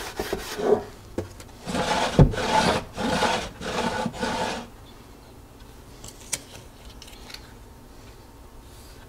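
A rag rubbing along the sides of a wooden drawer, then the drawer sliding in its cabinet opening: wood scraping on wood in a few strokes, with a knock about two seconds in. A single light click follows a few seconds later.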